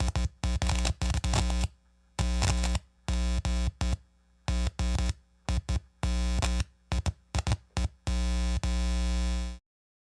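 Loudspeaker buzzing and crackling through an aux cable plug that is not fully seated: a loud hum-like buzz that cuts out and back in again and again with crackles as the contact breaks and makes. It stops for good about nine and a half seconds in.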